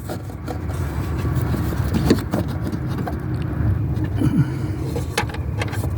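A steady low rumble with a few light clicks and rattles, as a small nut and tools are handled.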